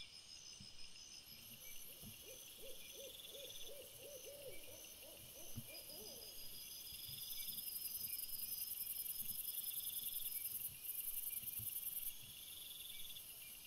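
Crickets and other night insects chirping and buzzing in a steady high-pitched chorus, loudest in the second half. About two seconds in comes a run of about a dozen quick low calls, roughly three a second, ending around six seconds in.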